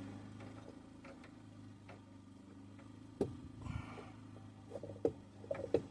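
A few light clicks and taps from handling tools and parts, with one sharper knock about three seconds in and a quick cluster of clicks near the end, over a steady low hum.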